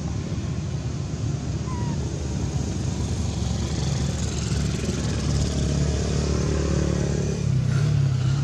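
A motor engine running steadily, a low hum that grows slightly louder toward the end.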